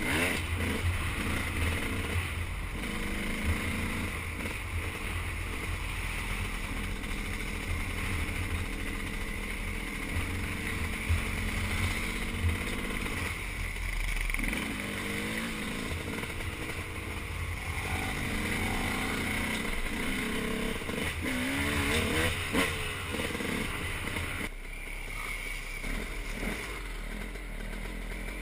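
Dirt bike engine heard from the rider's own bike on the trail, its pitch rising and falling several times as the throttle is opened and eased off. Near the end it drops back to a quieter, lower run.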